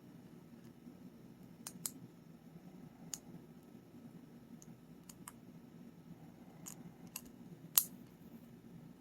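Sharp, irregular metallic clicks of a lock pick and tension wrench working the pin stack of a 7-pin Paclock 90A-Pro padlock, about eight clicks, the loudest near the end, over a low steady room hum.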